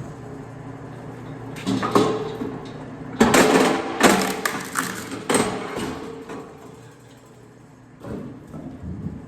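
DR electric kinetic log splitter re-splitting firewood. A steady motor hum runs underneath, broken by several bursts of wooden cracking and clattering as split pieces fall and are handled. The loudest burst comes a little past the middle.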